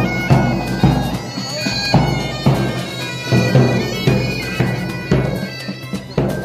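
Pipe band playing: bagpipes sounding a tune over their steady drone, with a bass drum striking in time about every half second.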